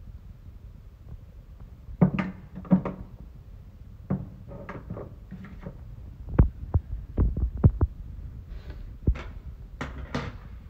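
Scattered light knocks and clicks of small bottles and containers being handled on a wooden dressing table, with a cluster of sharper taps around the middle, over a steady low hum.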